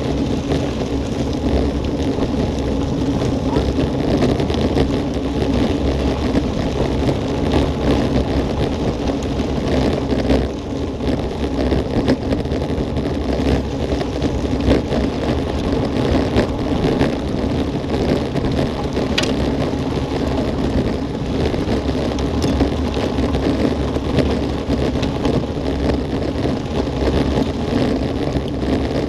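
Road bike tyres running fast over a gravel track, heard through a bike-mounted action camera: a steady rumble with many small clicks and rattles from stones and the bike, and wind on the microphone.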